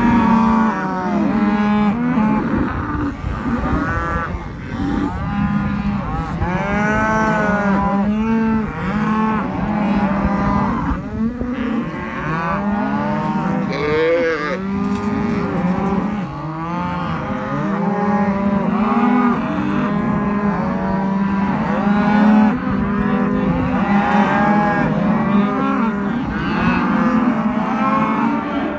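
A herd of cattle mooing and bawling, many calls overlapping.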